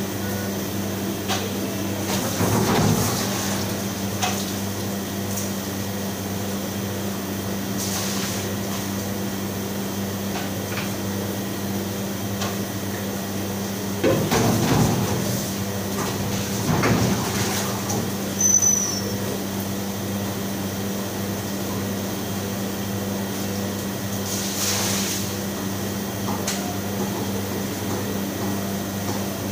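Steady hum of commercial kitchen machinery, the refrigeration units and ventilation running, with a few scattered knocks and clatters, most of them in the middle.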